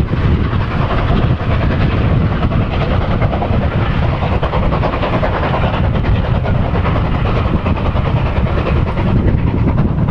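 Steam locomotive working a passenger train past, a steady, unbroken train noise of exhaust and wheels on the rails.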